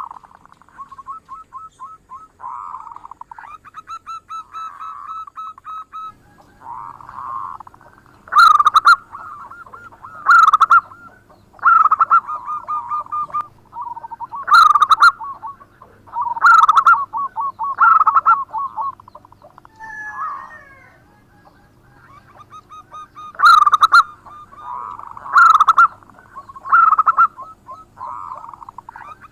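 Zebra dove (perkutut) cooing: repeated phrases of quick rolling coos, each with a loud clipped accent note, coming every couple of seconds with a short pause about two-thirds of the way through.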